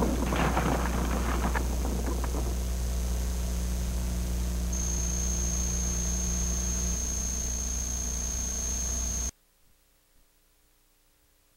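Steady electrical hum and hiss of an old analogue tape soundtrack, with a thin high whine that grows louder about five seconds in. A noisy sound fades out in the first two seconds, and the hum cuts off suddenly to silence near the end.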